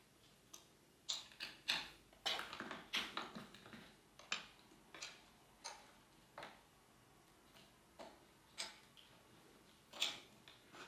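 Irregular small clicks and taps of hands fitting and fastening a GPS mount on a motorcycle's cockpit, thickest for a couple of seconds about a second in, then scattered single clicks.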